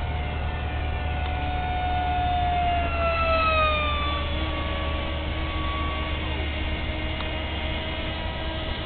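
Electric motors and propellers of an RC quad-plane in forward flight, a steady multi-tone whine that slides down in pitch about three seconds in, over a constant low hum.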